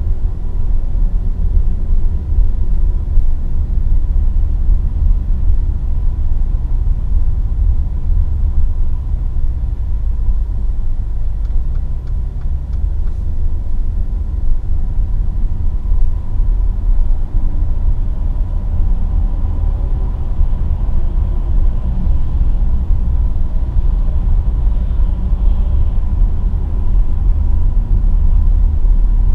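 A Mercedes-AMG GLE 43 on the move, its twin-turbo V6 and road noise making a steady low rumble, with a faint steady whine.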